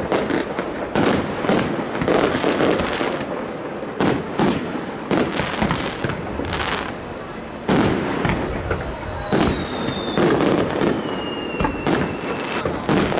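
Fireworks display: a rapid, irregular series of sharp bangs over dense crackling. In the second half, several long falling whistles sound over the bangs.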